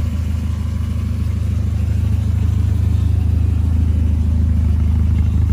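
Alfa Romeo Spider Quadrifoglio's twin-cam four-cylinder engine idling steadily while it warms up after a cold start, with a low exhaust rumble that gets a little louder about two seconds in.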